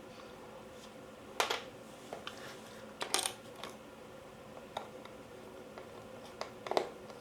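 Scattered sharp clicks and light knocks of airsoft AK parts and tools being handled during disassembly, the loudest about one and a half, three and nearly seven seconds in, over a faint steady hum.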